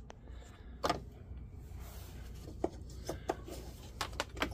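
A few scattered light clicks and taps from hands working parts in the empty charge-port recess of a car's body panel, over a low steady hum.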